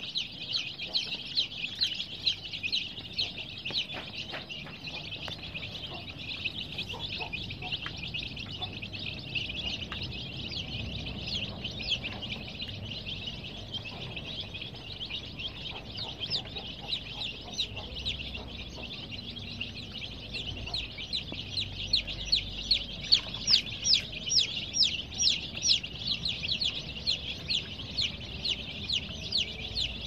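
A brood of baby chicks peeping nonstop: a dense chorus of short, high peeps, each falling in pitch, overlapping one another. The peeping grows louder about two-thirds of the way through.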